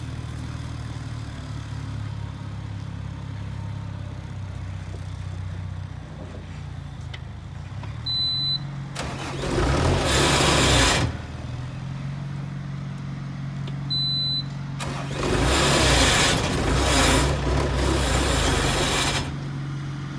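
Bobcat T180 compact track loader's diesel engine running steadily, then two louder stretches of a few seconds each, about nine and fifteen seconds in, as the machine is worked. A short high beep comes just before each loud stretch.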